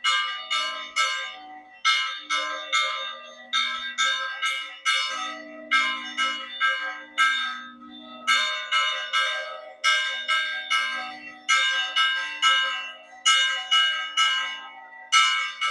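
Church bells rung by hand, struck rapidly in runs of about three or four strokes with short pauses between, each stroke ringing on and fading: the peal announcing the start of a village fiesta.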